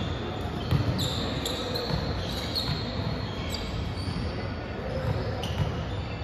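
Indoor volleyball rally on a hardwood court: a few sharp thuds of the ball being hit, and short high squeaks of sneakers on the floor, echoing in a large gym hall.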